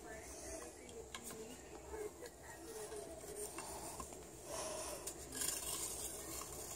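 Rolled paper sticks clicking, tapping and scraping on carpet as kittens bat and drag them: a scatter of light, irregular clicks over a soft rubbing.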